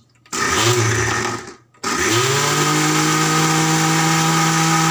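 Electric mixer grinder pureeing boiled, peeled tomatoes in its steel jar. It runs for about a second, stops briefly, then spins up again with a rising whine and runs steadily.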